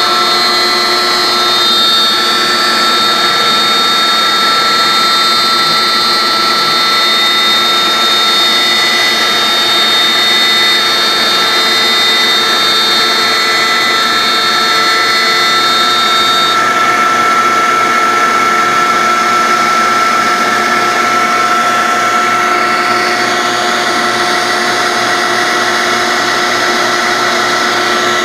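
Maxicam 1325 CNC router running, a steady machine whine made of several constant high tones over a rushing noise. A higher part of the whine drops out a little over halfway through.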